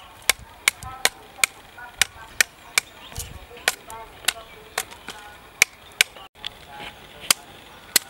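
Knife strokes chopping and paring the rind off sugarcane stalks: sharp, short cracks about two a second in an uneven rhythm.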